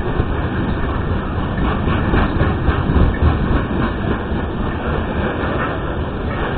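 Loaded coal cars of a long freight train rolling past close by: a steady rumble of steel wheels on the rails. Through the middle there is a rhythmic clickety-clack of wheels over rail joints, several clicks a second.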